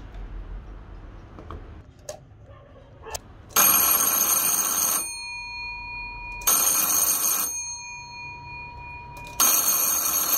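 CHEW 110 V AC electric fire bell ringing in three bursts of about a second each, its clapper hammering rapidly on the metal gong. After each burst the gong's tone hangs on and fades. A couple of light clicks come before the first burst.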